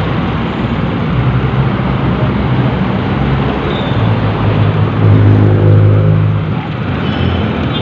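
Motorcycle engine running under way in city traffic, under a steady rush of wind and road noise. The engine revs up and gets louder about four seconds in, then eases off again a couple of seconds later.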